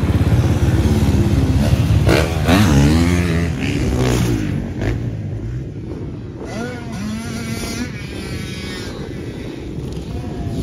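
Motocross dirt bike engines. One runs close by and revs up and down in the first few seconds. From about four seconds in, quieter dirt bikes ride the track, their engine pitch rising and falling as they accelerate and back off.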